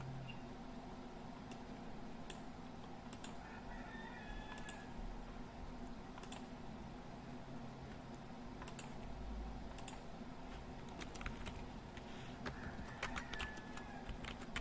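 Faint, scattered clicks of a computer mouse and keyboard, coming thicker near the end, over a steady low electrical hum.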